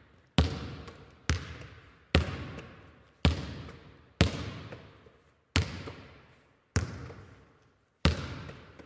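A basketball bouncing on a hardwood floor, eight bounces about a second apart and slowing slightly, each one followed by a long echo.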